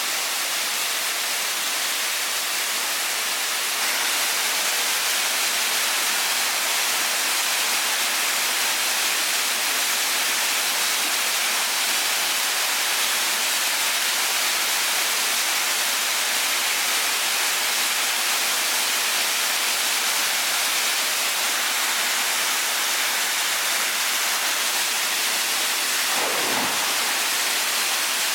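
Waterfall: a steady, even rush of falling water, a little louder from about four seconds in.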